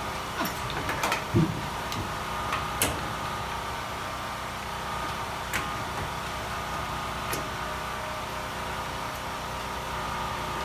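Several sharp knocks and clicks of hand work in the first three seconds, then two more single clicks, over a steady mechanical hum with a faint high tone.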